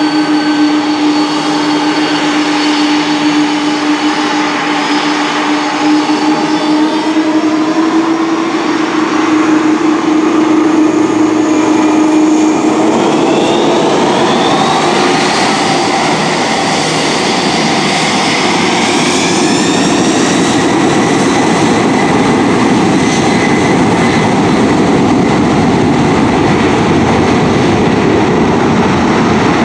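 The three Pratt & Whitney PW4000 turbofans of a McDonnell Douglas MD-11F freighter run steadily with a whine. About halfway through, the whine rises in pitch as the engines spool up to takeoff thrust, then settles into a loud, steady rush as the takeoff roll begins.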